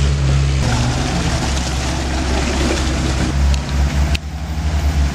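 Engine of an off-road 4x4 running, a steady low engine note under a rough haze of noise, with a short dip about four seconds in.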